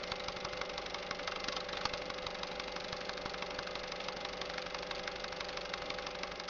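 Film projector running: a steady whir with a fast, even clatter of clicks.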